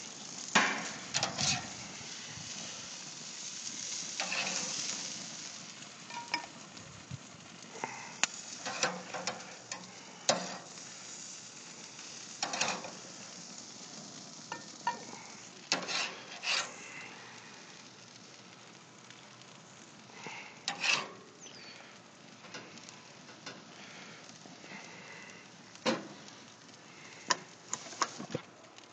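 Hamburger patties sizzling on a propane gas grill, a steady hiss broken by scattered clicks and short scrapes throughout.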